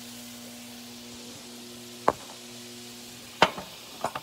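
Two sharp knocks, about two and three and a half seconds in, with a smaller one near the end, from the phone camera being handled against the stovetop. Under them is a faint steady sizzle of butter melting in a frying pan, with a low hum.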